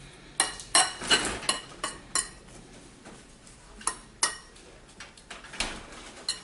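Metal fork clinking and scraping against a mixing bowl while stirring a burger mixture: a quick run of clinks in the first two seconds, then a few more spaced out.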